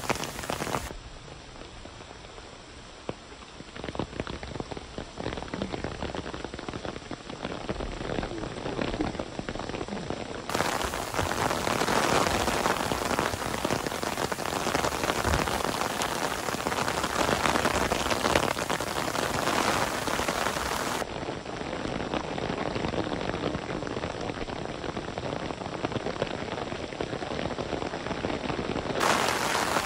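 Steady rain falling on wet paving. It is quieter for the first ten seconds or so, then heavier and louder.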